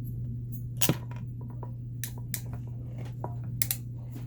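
Small sharp clicks and taps of tools and plastic and metal connector parts being handled, with one louder click about a second in, over a steady low hum.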